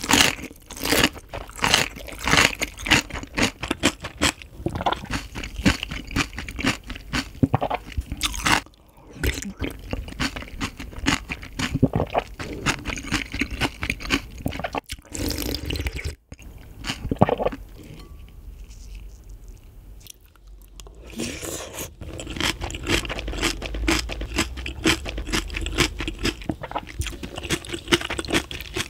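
Close-miked chewing of freshly made napa cabbage kimchi: crisp, wet crunches several times a second, with a few brief pauses. Later it turns to softer mouthfuls of rice soaked in ice water.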